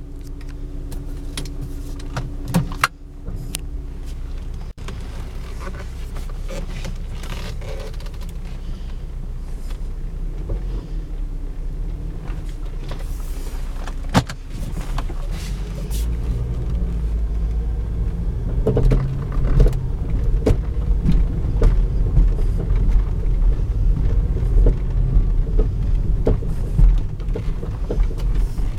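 Volvo S60 being driven: a steady low road and engine rumble with irregular sharp knocks on top of it, the knocking the owner hears when driving. The rumble grows louder about halfway through.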